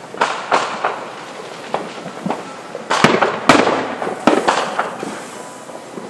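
Aerial fireworks bursting in a rapid string of sharp bangs, each trailing off in a short echo, about a dozen in six seconds. The loudest bangs come about halfway through.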